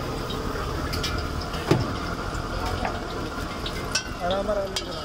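Potatoes deep-frying in hot oil: a steady bubbling sizzle, with a few sharp clicks.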